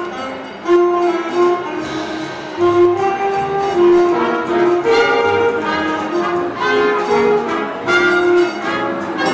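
Music: a melody of held notes moving from pitch to pitch.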